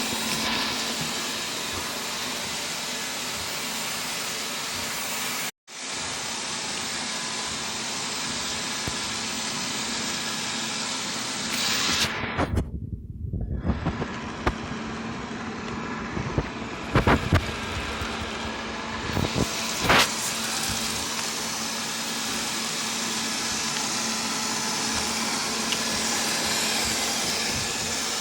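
Wyze robot vacuum cleaning: the steady whir of its suction fan with a faint constant hum. The sound cuts out for an instant about five seconds in, and a run of clicks and knocks comes between about twelve and twenty seconds in.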